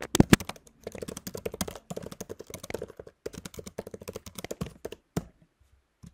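Typing on a computer keyboard: a quick, uneven run of key clicks that stops about five seconds in.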